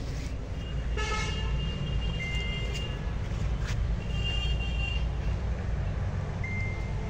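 Horns honking several times: a short blast about a second in, then a few steady high beeps, over a steady low rumble.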